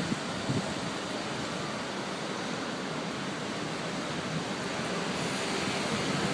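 Steady rush of strong storm wind, growing a little louder near the end.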